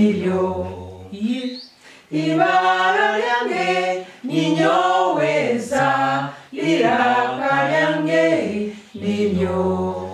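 A man and three women singing unaccompanied in short phrases with brief breaks between them. It is a letter-sound song in Runyoro-Rutoro, sung along to an alphabet chart.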